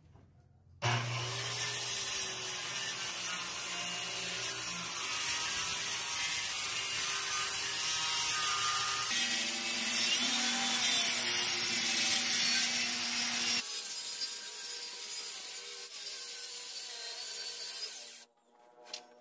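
DeWalt corded circular saw ripping a 2x3 wooden board lengthwise along its edge guide, cutting steadily through the wood. It starts suddenly about a second in, gets quieter for the last few seconds and stops abruptly near the end.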